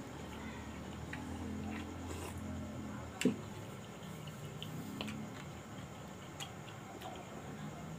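A person chewing half-cooked grilled cuttlefish with rice, making soft wet mouth and lip sounds with scattered faint clicks. There is one sharper, louder click about three seconds in.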